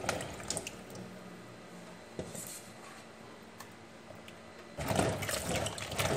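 Water running from a tap into a sink as food is washed: a soft steady flow, then a much louder rush and splashing about five seconds in.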